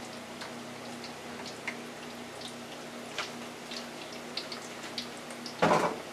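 French fries deep-frying in hot oil: scattered light crackles and pops over a steady hiss, with a short louder knock near the end.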